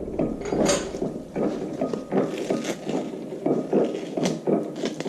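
Hand work at a tractor's rear axle: irregular scraping and rubbing with scattered clicks, as the axle is turned by hand and tape backing is peeled.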